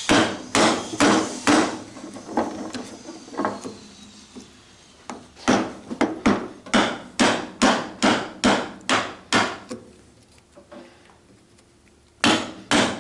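Mallet striking a wood chisel to chop a mortise in timber: firm knocks in runs of about two a second, a few lighter taps between runs, and a short pause before the hitting starts again near the end.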